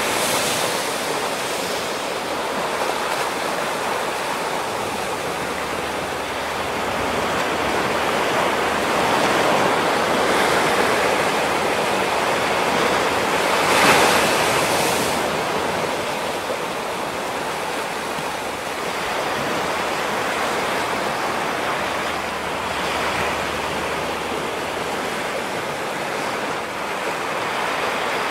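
Ocean surf breaking on a rocky shore: a continuous wash of waves that slowly swells and ebbs, with one louder wave crashing about halfway through.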